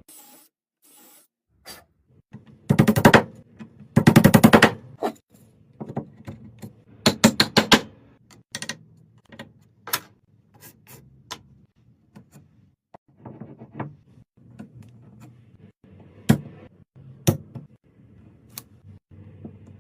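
Workshop tool noises: two loud bursts of rapid clattering impacts, each about half a second long, near the start, then a quicker group of clicks and scattered single sharp knocks and taps.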